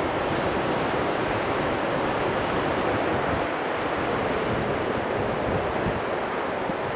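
Ocean surf breaking on a sandy beach: a steady, unbroken wash of waves.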